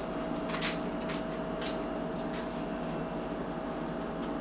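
Steady mechanical hum with a thin, faint steady whine, and a couple of faint clicks about half a second and a second and a half in.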